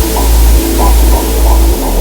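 Lullaby-style music with deep bass notes changing about every half second and a simple higher melody, over a steady white-noise hiss.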